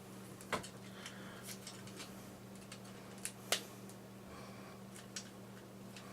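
Plastic parts of a Transformers Studio Series Stinger action figure clicking and snapping as they are moved by hand. There are scattered small clicks, with two sharper ones about half a second in and about three and a half seconds in, over a steady low hum.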